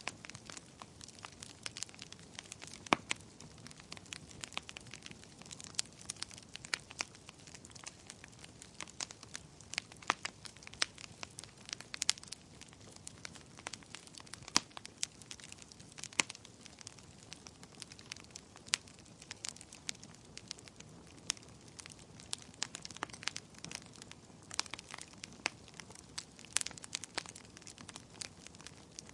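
Campfire burning with irregular sharp crackles and pops of wood, several a second, over a low steady hiss of flame.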